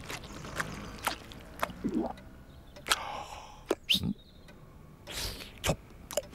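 A man eating pizza: chewing and lip-smacking mouth sounds, a string of short wet clicks and smacks with a couple of brief low murmurs of enjoyment.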